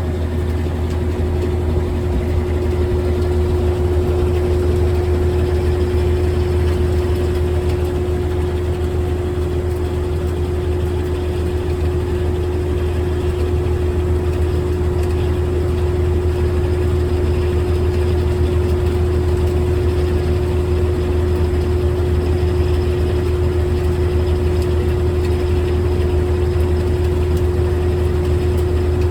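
GE top-load washing machine running with its lid open: a steady low hum with a constant tone above it, even throughout.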